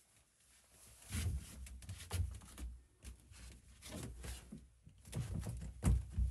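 Irregular knocks, rubs and low thuds of a handheld camera being moved and bumped around a cramped boat engine bay; the engine is not running.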